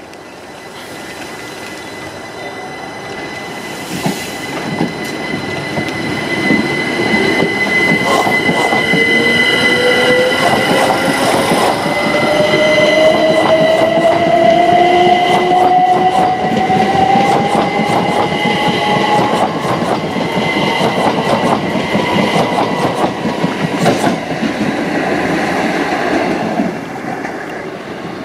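Class 387 electric multiple unit running close past along the platform while accelerating. Its motor whine rises steadily in pitch over about a dozen seconds, over a steady high tone and wheels clicking on the rails. It is loudest in the middle as the carriages go by and drops away near the end.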